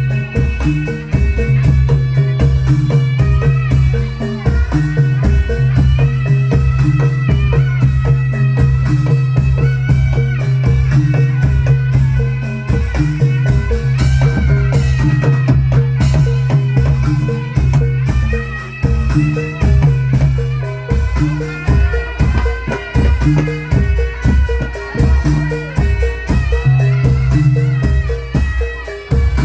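Live traditional Javanese folk ensemble playing drum-driven music, with a steady pulsing low beat, rattling percussion strokes, and a wavering melody line above.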